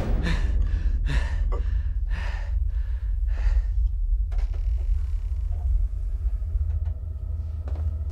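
A person gasping for breath in a series of ragged gasps over the first few seconds, over a steady low rumble; the gasps give way to a few faint ticks.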